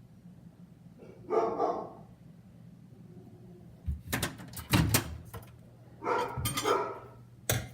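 A dog barks in two short bouts, about a second in and again near six seconds. Several sharp knocks fall between them and near the end, over a faint steady low hum.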